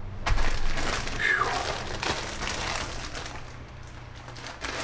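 Crinkling and rustling of packaging as a box is unpacked by hand, with many small crackles, loudest in the first couple of seconds and then fading.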